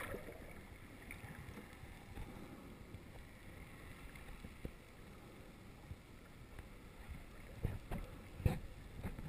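Muffled underwater water noise picked up through a camera's waterproof housing, with a few dull knocks near the end.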